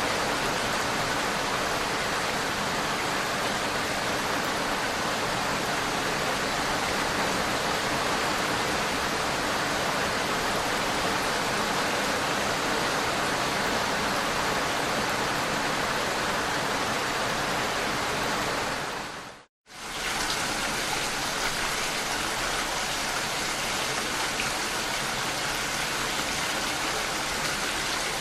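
Steady, even rain hiss. About nineteen and a half seconds in, it fades to silence for a moment and then comes straight back.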